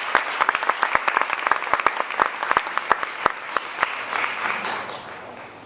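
Audience applause: many people clapping densely, with a few sharp claps standing out, dying away near the end.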